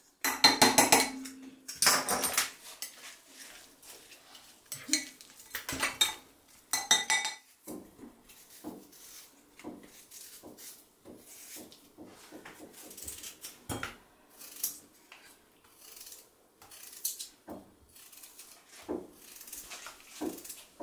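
Kitchen clatter as the blade and bowl of a small food chopper are handled, then a small knife slicing a raw potato held in the hand, with thin slices dropping into a glass bowl in soft, irregular clicks.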